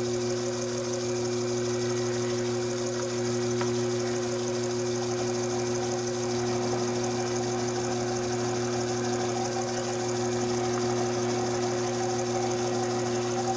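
Taig micro lathe running with a steady motor hum while a center drill in the tailstock chuck cuts a center hole in the end of a spinning mild steel part. A higher whine joins about halfway through and stops right at the end.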